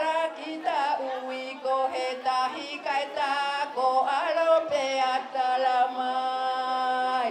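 Voices singing a chant-like song without instruments, ending on a long held note that cuts off abruptly at the end.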